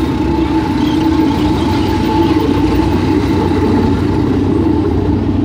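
Hägglunds Bv 206 tracked articulated all-terrain carrier driving past. Its engine runs with a steady drone and a thin whine above it.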